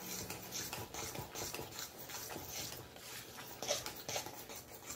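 Spoon stirring a thick macaroni and cheese mixture in a stainless steel saucepan: a repeated scraping, a few strokes a second.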